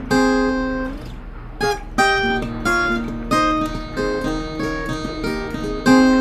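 Background music of strummed acoustic guitar chords, each struck and left to ring.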